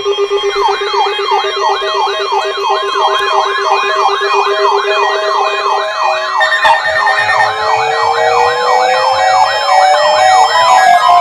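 Several emergency alert radios sounding their alarms together for an EAS Required Monthly Test. A siren tone sweeps upward about three times a second over steady tones and beeping. About six seconds in, a slowly rising tone joins them.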